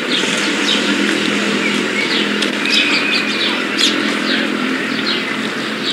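Small birds chirping, many short down-slurred calls in quick succession, over a steady low hum.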